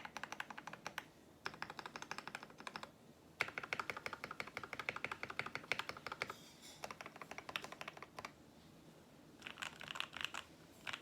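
Fast typing on a 60% mechanical keyboard with lubed Gateron Yellow linear switches, a PE foam mod, case and plate foam, and ABS keycaps. The keystrokes come in quick runs of many per second with short pauses between them, the longest run through the middle.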